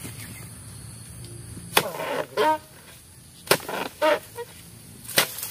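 Oil palm harvesting chisel on a long pole jabbed into the base of the palm's fronds: three sharp chops about every second and a half, each followed by a brief ringing.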